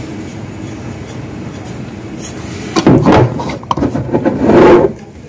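A steady mechanical hum runs in the kitchen. From about three seconds in, loud rubbing and knocking comes from a hand handling the camera close to the microphone, and it stops just before the end.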